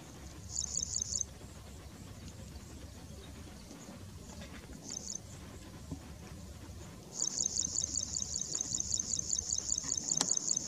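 High-pitched insect chirping in rapid, evenly pulsed trills. There is a short burst near the start and another about five seconds in, then a steady trill from about seven seconds in, over a low background rumble.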